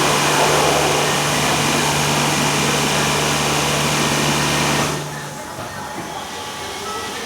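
Automatic brush car-wash machine running: a steady motor hum under a loud rushing noise from the brushes and spray. The hum and most of the noise cut off suddenly about five seconds in, leaving a quieter rush.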